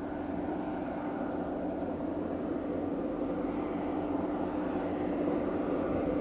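Diesel engine of an approaching vehicle running steadily, a droning hum with one held tone, growing slowly louder as it comes closer.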